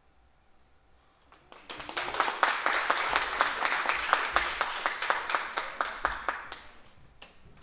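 Audience applause: clapping starts about a second and a half in, holds for about five seconds, then dies away near the end.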